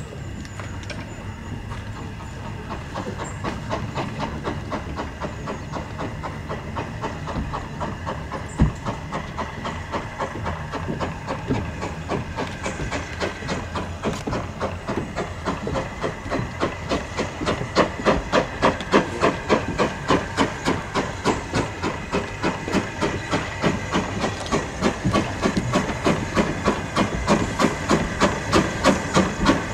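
Steam locomotive exhaust chuffing in a regular beat over a steady steam hiss, growing steadily louder. One sharp knock about eight and a half seconds in.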